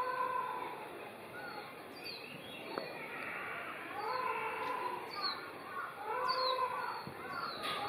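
Small birds chirping in short falling notes, repeated every second or so, over longer held mid-pitched calls.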